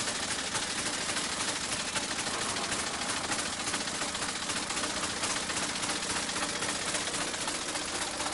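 Engine of a 1902 Wolseley veteran car running steadily as the car drives along, a fast, even run of firing beats.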